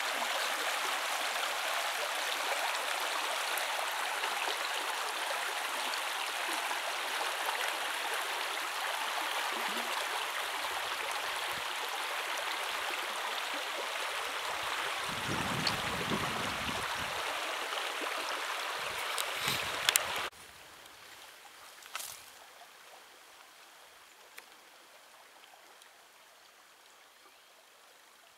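Shallow river water rushing over a stony riffle, a steady even rush. A few sharp clicks come just before it cuts off suddenly about twenty seconds in, leaving only a much fainter rush of water.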